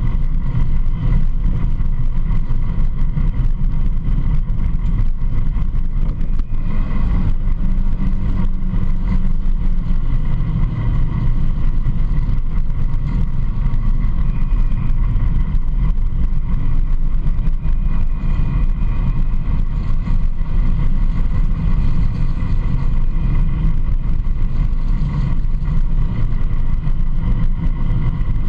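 Polaris RZR side-by-side driving steadily along a gravel road: a constant engine and driving rumble, heavy in the low end.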